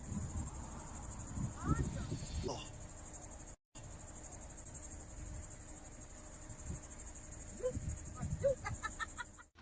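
Insects chirping steadily in a high, continuous drone, with a brief cut-out about three and a half seconds in.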